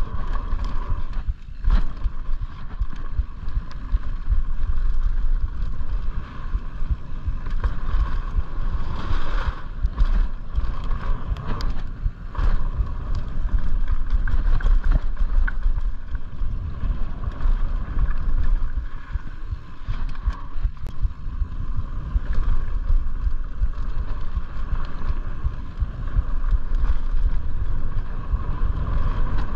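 Mountain bike descending a fast dirt and gravel trail: wind buffeting the microphone over the hiss of tyres on the dirt, with frequent short rattles and knocks from the bike over bumps and stones.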